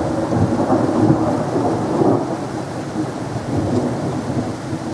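Thunder rumbling over steady rain, easing slightly toward the end.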